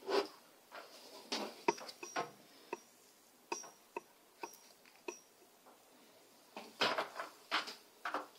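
Hard plastic clicking and clattering as a black power-supply brick and its cable are handled, with a dozen or so light sharp knocks and a busier run of them near the end.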